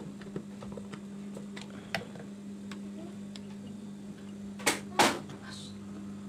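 Screwdriver tightening the mounting screw of a sewing machine binder attachment: scattered light metal clicks, then two loud knocks near the end, over a steady low hum.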